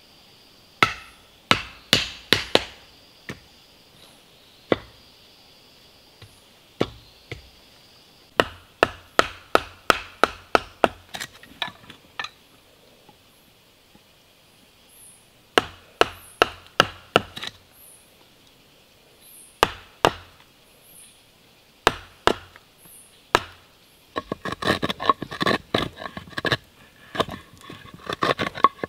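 A steel carving blade chopping into fresh green wood: sharp knocks in quick bursts of several strikes, with pauses between bursts. Near the end it turns into a fast run of short scraping cuts.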